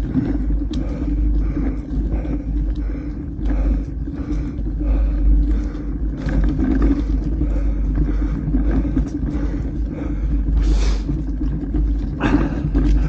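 Wind rumbling on the microphone of a mountain bike on the move, over a steady ride noise, with short rustling or crunching noises repeating about two to three times a second. A louder burst of noise comes near the end.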